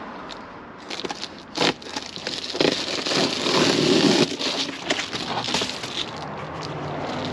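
Scissors cutting through a sheet of foil-faced reflective insulation, the foil crinkling and crackling as the sheet is handled. The loudest stretch of cutting and crinkling comes in the middle, with a single sharp snap a little before it.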